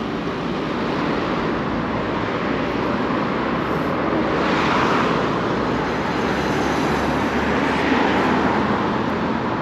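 Road traffic on a busy multi-lane road: cars and trucks driving past with a steady rush of tyre and engine noise, swelling as vehicles go by, around halfway and again near the end.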